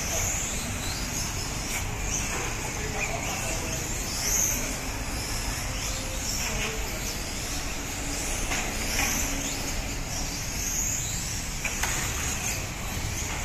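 Electric 1/12-scale on-road RC racing cars lapping a track: high-pitched motor and gear whines that rise and fall as the cars speed up and slow for the corners, over a steady background noise.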